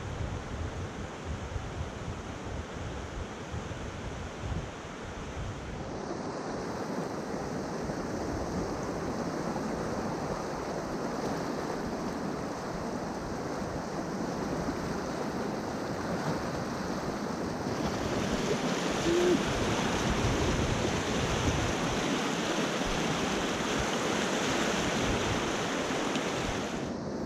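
Rushing river water with wind buffeting the microphone, a steady noise. It changes abruptly about six seconds in and again at about eighteen seconds, after which it is louder and brighter.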